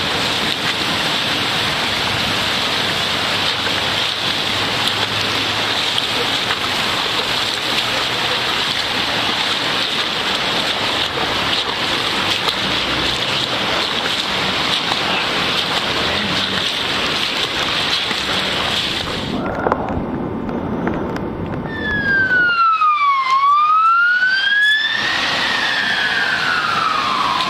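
Heavy hail and rain pelting down in a dense, steady hiss that thins out about twenty seconds in. A fire engine's siren then sounds a slow wail, its pitch falling, rising and falling again in long sweeps.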